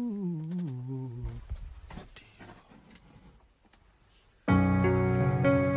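A man's voice sliding down in pitch for about a second, then quiet with faint clicks, then keyboard music with sustained piano chords starting abruptly about four and a half seconds in.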